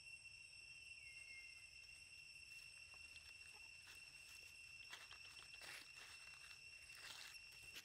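Near silence: a faint, steady, high-pitched insect drone, with a few soft rustles about five and seven seconds in.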